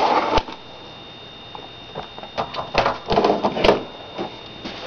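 Plastic clicking and rattling of a 3x3 speed cube being handled, in a short burst at the start and a denser run of clicks around the middle.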